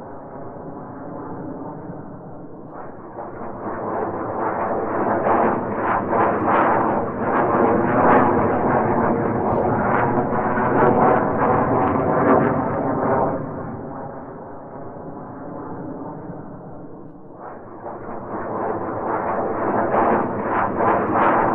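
Background music with a steady beat, swelling louder a few seconds in, easing off past the middle, then building again near the end.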